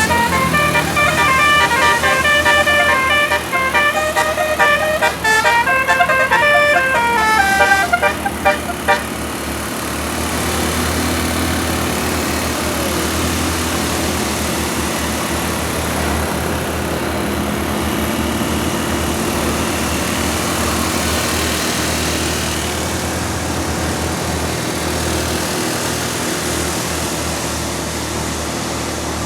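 Bus telolet 'basuri' musical horn playing a tune of quick stepped notes, which stops about nine seconds in. A steady low vehicle rumble is left after it.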